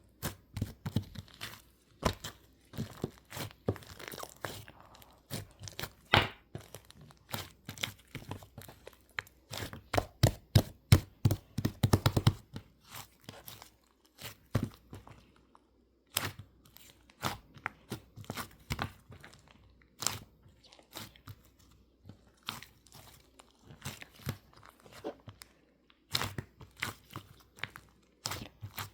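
Slime being squeezed, poked and pressed by hand: a run of sticky crackling clicks and pops, thickest about ten to twelve seconds in, with brief pauses between handfuls.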